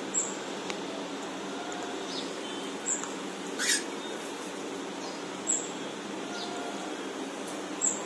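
Alexandrine parakeet feeding: a few brief, soft nibbling and crunching sounds from its beak at chopped vegetables and fruit. A single short chirp falls in pitch about three and a half seconds in. All of this sits over a steady background hum.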